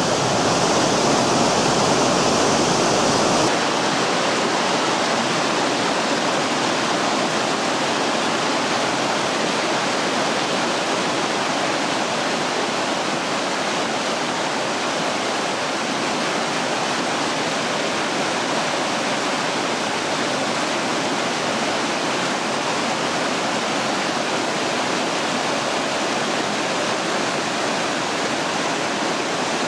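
Steady rush of a mountain waterfall, changing about three and a half seconds in to the close rush of a stream cascading over rocks, a little quieter.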